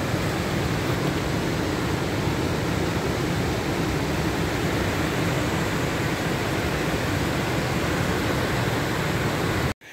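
Stamp River in winter flood pouring over its falls and rapids: a steady, loud rush of whitewater that cuts off abruptly near the end.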